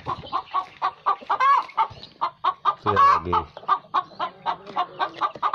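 A flock of domestic chickens (Bangkok fighting cocks, pelung and kampung birds) clucking, short clucks coming several times a second and overlapping.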